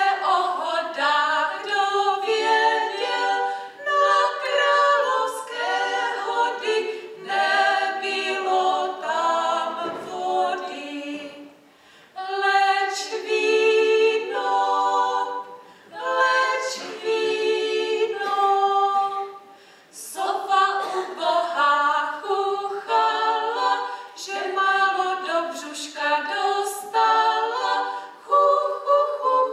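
Choir singing a Christmas carol unaccompanied, phrase by phrase, with a few brief breaks between phrases.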